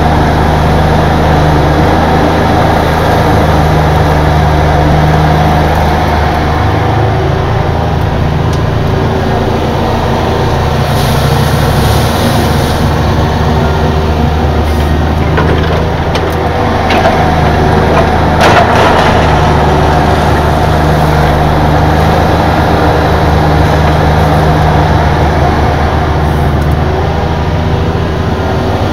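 Cat mini excavator's diesel engine running steadily as the machine works, with a few short knocks and scrapes of gravel around the middle.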